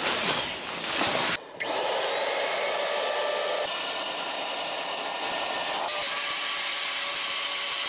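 Small electric air pump running steadily as it inflates an air mattress, with a brief break about a second and a half in before it runs on evenly.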